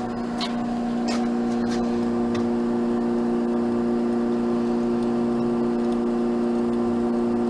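Hydraulic oil pump on a 1968 Ohmiya OC-18 centerless grinder running with a steady electric hum, the grinding wheel not yet started. A few light clicks come in the first two seconds or so.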